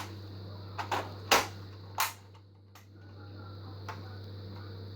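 Toy Nerf shotgun being cocked and worked by hand: sharp plastic clicks and clacks, a couple of soft ones just under a second in, then two loud clacks about a second in and two seconds in, with a few faint ticks after.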